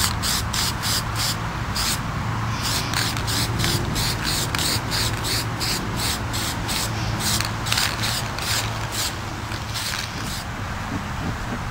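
Aerosol spray-paint can spraying black paint through a tape stencil in short, quick bursts, about three a second. The bursts pause briefly about two seconds in and stop near the end.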